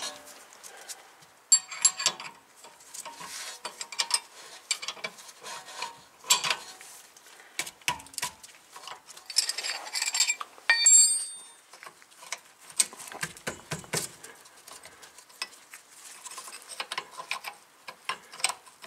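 Steel wrenches clicking, clinking and scraping against the 2014 Toyota Corolla's rear brake caliper bolts as they are loosened with two wrenches, in irregular metal-on-metal taps with a few short ringing clinks around the middle.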